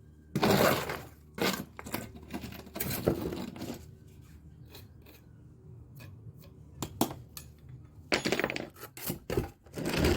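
Hand tools working mortar on brickwork: several short rough scrapes, the strongest about half a second in, around three seconds in and twice near the end, with light clinks and taps in between.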